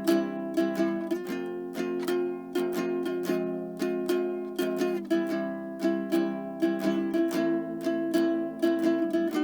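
Background music: a light ukulele tune of plucked notes at a steady, bouncy pace.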